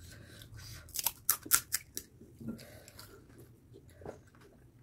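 Crisp, hollow fried pani puri shells cracking and crunching as they are broken open and bitten: a quick run of sharp crackles about a second in, then a few softer crunches and chewing.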